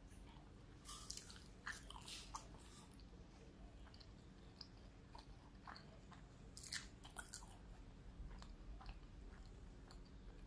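A person quietly chewing crispy fried chicken wings and egg rolls, with clusters of sharp crackling clicks about a second in and again near seven seconds.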